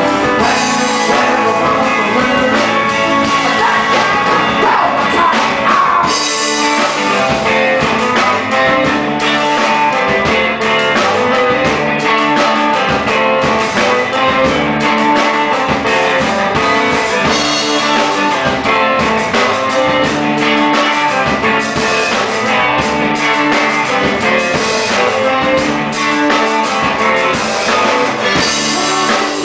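A live band playing a blues-rock song: drum kit with cymbals, electric guitars and a strummed acoustic guitar, going steadily throughout.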